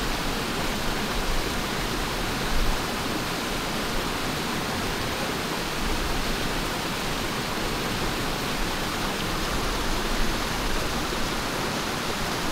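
River water rushing, a steady even rush, with a brief low thump about two and a half seconds in.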